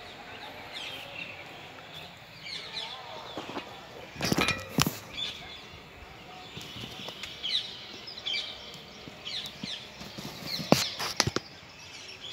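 Small birds chirping repeatedly in the background, with two brief clusters of loud, sharp noises: one about four seconds in and one around eleven seconds in.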